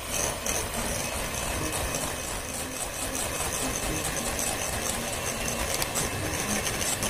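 Electric hand mixer running steadily, its twin beaters churning a thick creamed butter dough in a glass bowl.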